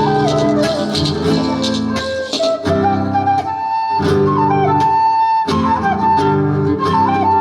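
Quena (Andean notched flute) playing a melody with slides between notes, over an accompaniment of sustained chords and a rhythmic shaker.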